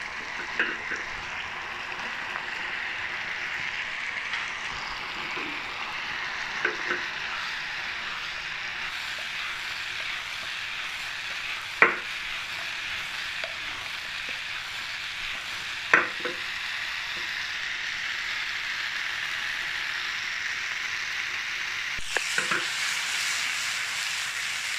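Chilli sauce with onions and peppers sizzling steadily in a nonstick frying pan as deep-fried chicken pieces are tossed and stirred through it with a spatula. The spatula knocks sharply against the pan a few times, most loudly twice around the middle.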